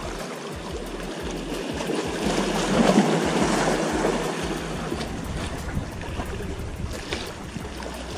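Sea waves washing against the rocks of a breakwater. One surge builds and breaks about three seconds in, then eases off.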